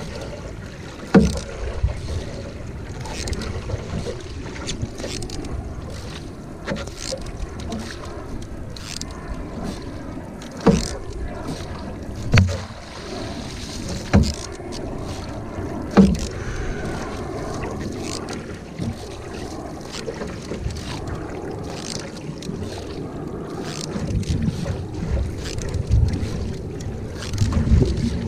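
Canoe paddled with a single-blade paddle: repeated strokes splashing in the water, with water rushing along the hull. A few sharp knocks stand out, the loudest in the first half, a couple of seconds apart.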